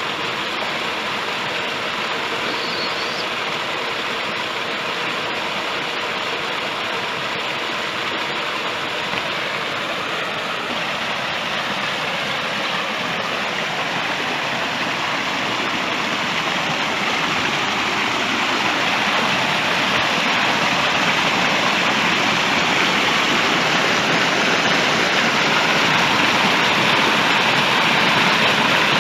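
Running water of a hill stream rushing and splashing over rocks, a steady hiss that grows slightly louder in the second half.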